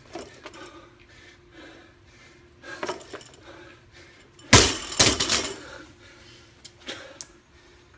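A loaded barbell is dropped from overhead onto concrete about four and a half seconds in: the weight plates slam down, strike again as they bounce, and the bar rattles.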